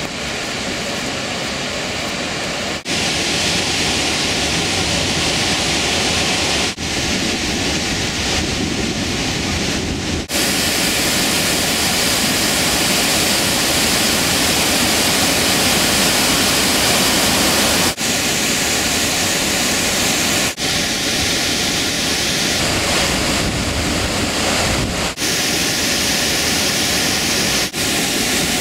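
Nugget Falls, a large waterfall, crashing down onto rock and a sandbar: a loud, steady rush of falling water, with several brief dips in the sound.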